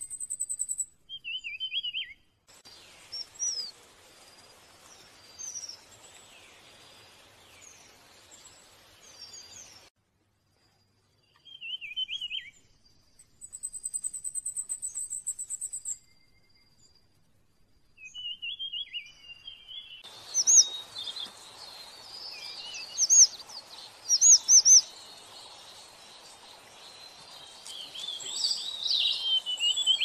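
Small songbirds chirping and calling in several short spliced takes, with brief silent gaps between them: high thin trills and short falling chirps. In the last third a busier run of sharp calls over a steady background hiss takes over.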